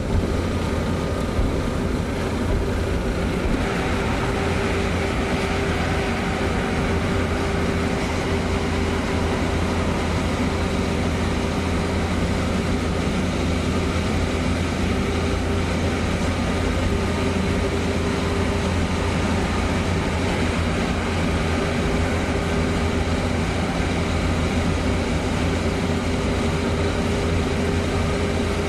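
Car driving at a steady speed through a road tunnel: a continuous low engine and tyre rumble with a steady drone. The noise grows fuller and brighter a few seconds in, as the car enters the tunnel.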